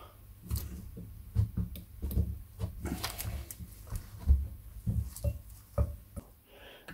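Steel seal-removal tool scraping and clicking against the old oil seal and the steel end of a gearbox high gear as the stubborn seal is prised out, in a run of irregular short scrapes and clicks.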